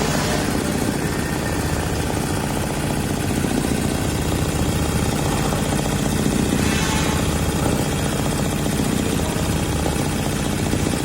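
Fuwei computerized embroidery machine running, its needles stitching in a fast, steady chatter.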